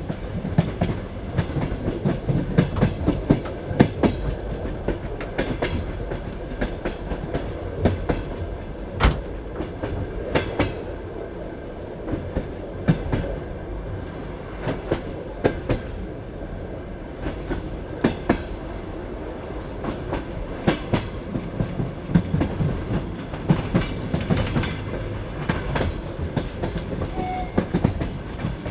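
Passenger train carriage running over track: the wheels clack over rail joints in irregular single and paired knocks above a steady rumble.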